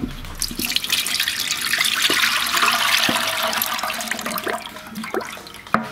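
Automatic transmission fluid pouring and splashing from a removed transmission oil pan into a drain basin, building up, then tapering off to a trickle. A sharp knock near the end.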